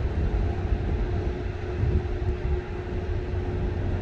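Wind rumbling and buffeting on the microphone at the shore, with a steady low hum underneath.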